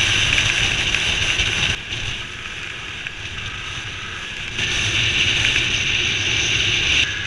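Wind rushing over the microphone of a moving motorbike at road speed, over a low engine rumble. It drops quieter suddenly about two seconds in and grows louder again about four and a half seconds in.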